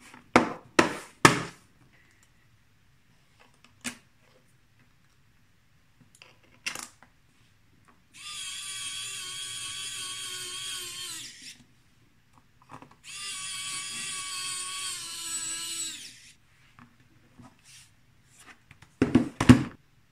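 Cordless electric screwdriver running in two steady whining runs of about three seconds each, driving the screws of a laptop's bottom cover back in. Sharp plastic clicks come near the start as the cover is pressed into place, and quick taps on the laptop keyboard come near the end.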